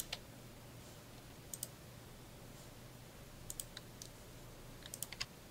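Faint scattered clicks, several in quick pairs, over a low steady hum.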